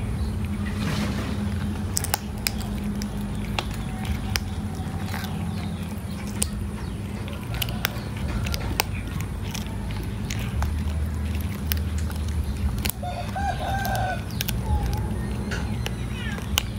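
Chickens clucking, with one wavering call lasting over a second near the end, over a steady low rumble. Scattered short clicks of a cat chewing meat.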